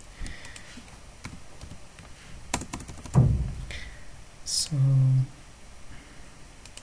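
A few scattered computer keyboard keystrokes and clicks, with one heavier thump about three seconds in.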